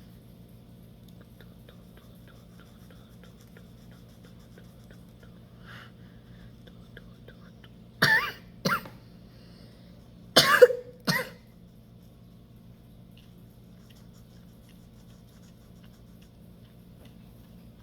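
A person coughing in two fits a couple of seconds apart, each a quick double cough, over a steady low hum.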